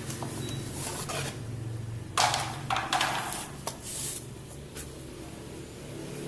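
Several short rubbing and scraping noises, the loudest just over two seconds in, over a steady low hum.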